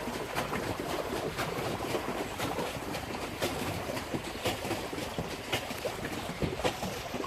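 Pedal-driven paddle boat churning through the water, its paddle wheel splashing in a steady rhythm of about two splashes a second.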